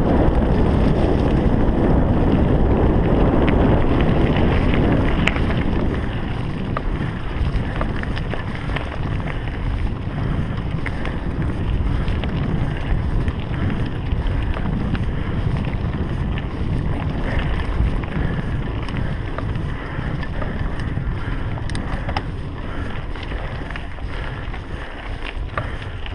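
Wind rushing over an action camera's microphone as a mountain bike rolls along a dirt singletrack trail, with scattered small knocks and rattles. The rush is loudest for the first six seconds or so, then eases a little.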